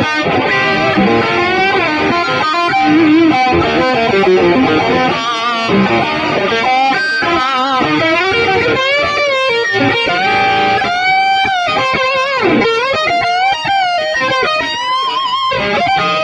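Electric guitar playing a lead melody full of string bends and vibrato, the notes sliding up and down in pitch.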